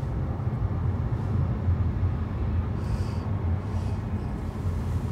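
Steady low rumble of a car in motion, heard from inside the cabin.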